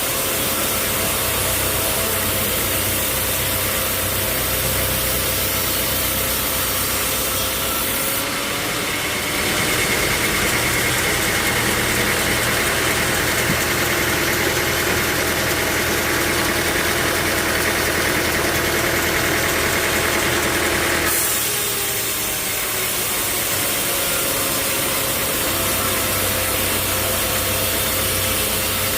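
Sawmill machinery running steadily, a constant engine-driven drone. About a third of the way in it changes abruptly to a steadier, higher whine, and about two thirds of the way in it changes back to the first drone.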